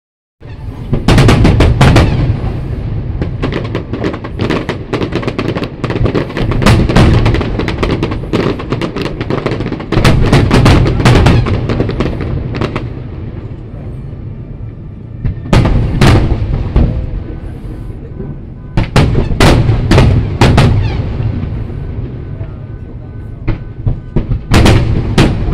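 Aerial fireworks display: shells bursting in rapid volleys of sharp bangs and crackles, several dense barrages separated by brief lulls.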